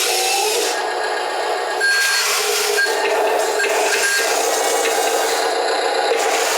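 Wheel loader at work: steady machine noise mixed with scraping and rattling as the bucket drags through soil.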